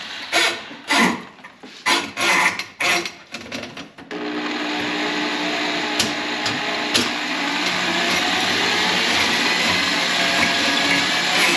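Motor of a power drain snake clearing a grease-clogged kitchen sink drain line. It starts and stops in short bursts, then runs steadily from about four seconds in.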